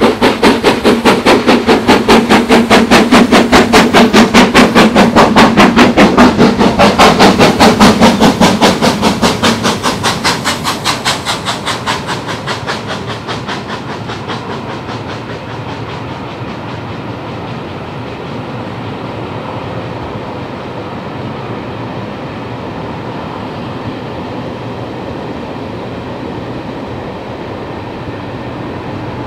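GWR Castle-class four-cylinder 4-6-0 steam locomotive 7029 Clun Castle working hard, accelerating a train with a rapid, even beat of loud exhaust. The beats fade out over a few seconds as the engine passes, leaving the steady rumble and wheel clatter of the coaches rolling by.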